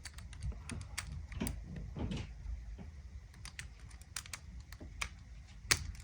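Small, irregular plastic clicks and ticks as a wire terminal is worked out of an ignition coil connector housing by hand and small screwdriver, with a sharper click near the end.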